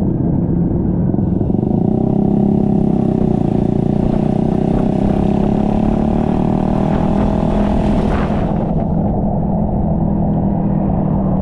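Honda Vario 160 scooter's single-cylinder engine running steadily under way, with a steady drone and small rises and falls in pitch. A higher hiss comes in about a second in and drops away again about eight and a half seconds in.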